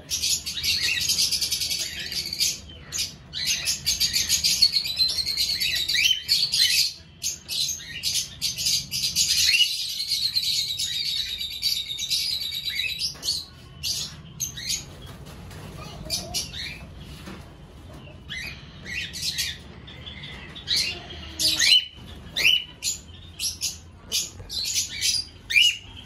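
A flock of small aviary parrots, lovebirds loudest among them, chirping and chattering over one another: a dense, continuous din for about the first half, thinning to scattered calls later.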